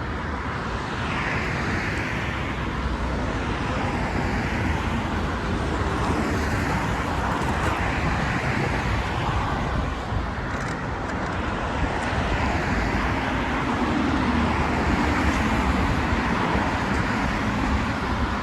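Steady rushing noise of riding a bicycle along a road: wind on the microphone and tyre noise.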